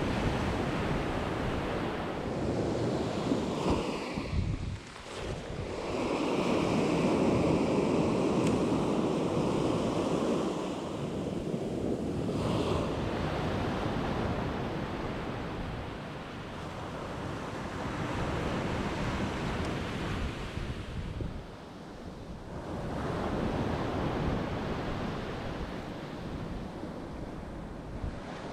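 Waves washing onto a shore, swelling and easing off every few seconds, with wind buffeting the microphone.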